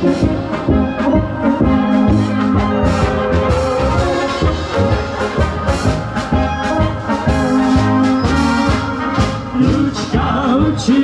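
A Czech brass band playing live: tubas, trumpets and flugelhorns and tenor horns sounding held melody notes, with the tubas and drum kit keeping a steady beat.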